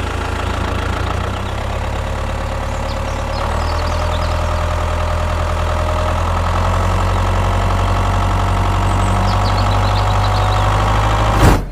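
Engine of a DIY mini-tractor well-drilling rig running steadily, its note rising and getting a little louder about three and a half seconds in. It cuts off abruptly with a sharp click near the end.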